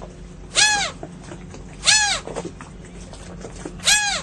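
Seagull calling three times, each a short, loud note that rises and then falls in pitch. A faint steady low hum runs underneath.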